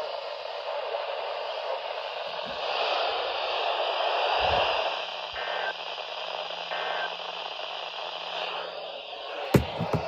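Radio static: a steady hiss from a receiver on a weak or noisy signal, with a faint hum underneath. Two faint short beeps sound in the middle, and a sharp burst of clicks comes near the end.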